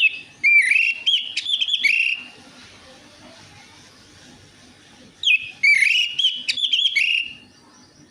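Orange-headed thrush (anis merah) singing: two loud whistled song phrases of about two seconds each, the second starting about five seconds in, each a quick run of rising and falling notes.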